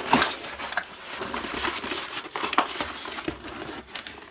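A corrugated cardboard box being handled, its flaps rustling and scraping, with scattered light clicks and knocks. The rustling dies down near the end.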